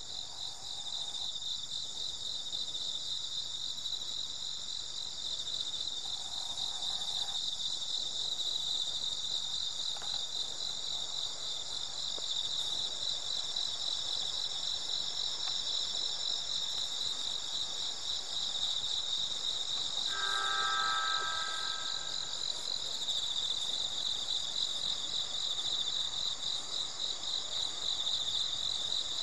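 Crickets chirping in a steady, finely pulsing high-pitched chorus. About twenty seconds in, a short pitched tone sounds as the train pulls out.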